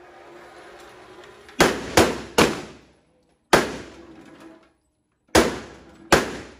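Handgun shots ringing off the walls of an indoor shooting range: three quick shots about a second and a half in, a single shot near the middle, then two more near the end.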